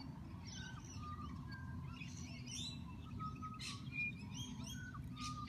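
Birds chirping outdoors: many short chirps and brief whistled notes scattered throughout, over a low steady background hum.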